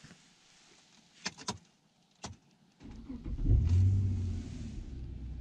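A few clicks at the ignition, then a car engine is started: it cranks, catches with a brief flare in revs, and settles into a steady idle.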